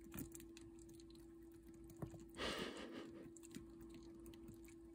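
Faint soft taps and scratching from chicks pecking and moving on wood-shavings bedding, with a brief louder rustle about two and a half seconds in, over a steady low hum.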